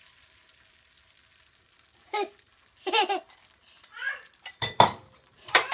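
Beaten eggs sizzling in an oiled pan, fading away over the first second or so. Then a toddler's voice is heard three times, followed near the end by a few sharp knocks, the loudest sounds here.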